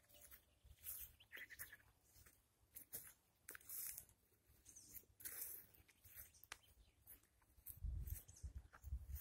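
Faint swishing of tall grass brushing past with each step of someone walking through a meadow, recurring every half second to a second. A few low thumps come near the end.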